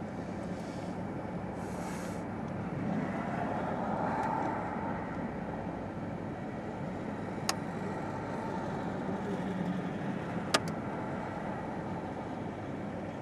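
Approaching freight train led by EMD SD70MAC diesel-electric locomotives: a steady rumble of engines and wheels on rail, swelling briefly about four seconds in. Two sharp clicks, about seven and ten seconds in.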